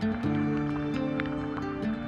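Background music: a melody of held notes that changes pitch every half second or so.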